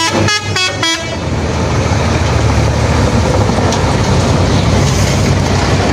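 A truck horn gives three short toots in the first second, then a heavy truck's engine runs steadily as the truck drives slowly past close by.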